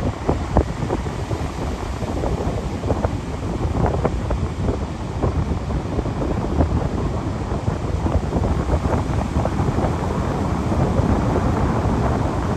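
Ocean surf breaking offshore and washing up a flat sand beach: a steady rush of water with many small crackles, under a low rumble of wind on the microphone.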